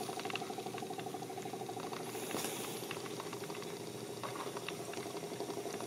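Hydrogen generator bubbling: zinc and hydrochloric acid fizzing in a flask, with the gas bubbling through a flask of water on its way into the can. A quiet steady fizz with many small pops.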